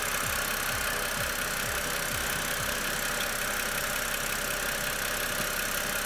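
BMW E92 328i's inline-six engine idling steadily, with a faint steady high tone. The power steering pump is running on fresh fluid, and its whine is almost completely gone.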